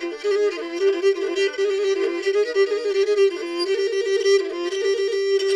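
Pontic lyra (kemenche) playing a fast, ornamented instrumental passage with no singing, settling on a long held note near the end as the tune closes.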